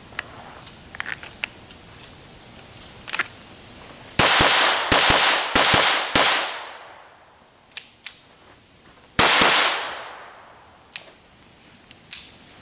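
Gunshots fired in quick pairs as double taps. A rapid string of shots comes about four to six seconds in and another pair about nine seconds in, each crack followed by a short echoing tail.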